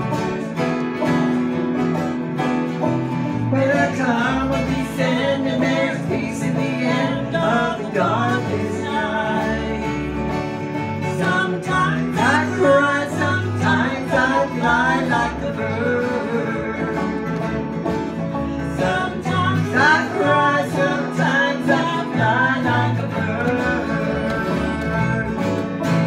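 Acoustic folk band of several acoustic guitars and a banjo strumming and picking a country-style song. A woman's singing comes in about four seconds in and carries on over the instruments.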